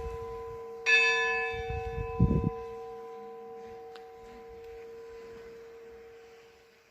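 A church bell is struck once about a second in. Its deep tone, with several higher overtones, rings on and slowly fades. A brief low thump comes a little after the stroke.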